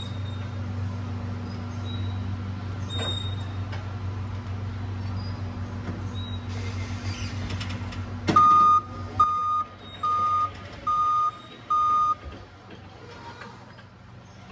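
Forklift's hydraulic pump motor humming steadily while the mast is worked, cutting off suddenly about eight seconds in. Then the forklift's reversing alarm beeps five times, about 0.8 s apart, as it backs up.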